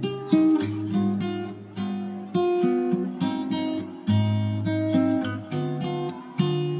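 Background music on acoustic guitar: strummed chords and plucked notes.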